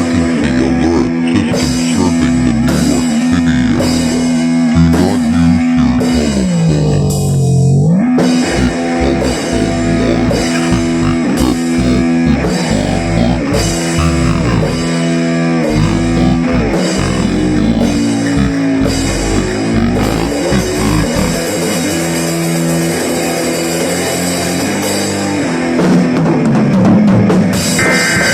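Rock instrumental with guitar and drum kit, the drums keeping a steady beat. About seven seconds in, a low held note bends down in pitch and comes back up.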